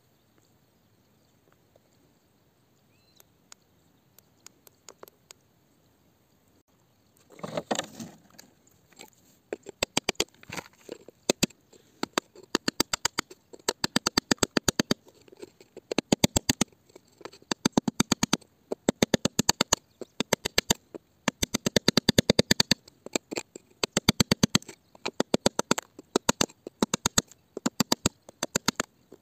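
Metal point tapping and chipping at hard rock around an embedded crystal: rapid sharp clicking taps in bursts, starting about ten seconds in after a nearly quiet start and a brief scraping rush.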